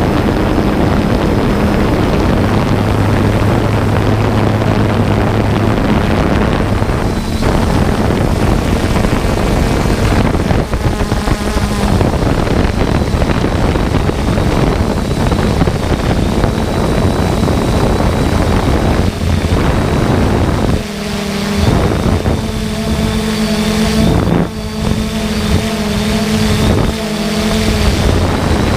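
Wind rushing over the microphone with a steady mechanical hum. A cluster of steady pitched tones joins in about twenty-one seconds in.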